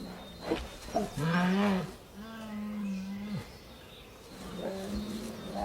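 Wild honeybees buzzing in a steady low hum as a brown bear raids their nest. After a couple of sharp knocks, the bear gives a loud, low drawn-out call about a second in, then a second, flatter held call.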